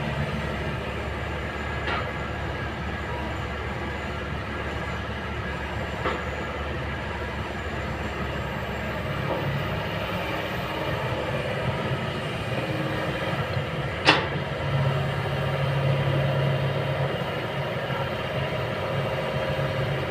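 Kobelco excavator's diesel engine running steadily as the machine works, with a few sharp knocks, the loudest about two-thirds of the way through, after which the engine gets louder for a few seconds.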